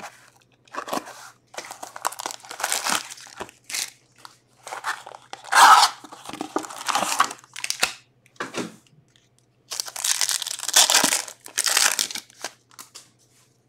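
Shrink wrap cut and torn off a trading-card hobby box, the cardboard box opened, and a foil card pack torn open: a run of irregular tearing and crinkling, with the pack tearing near the end.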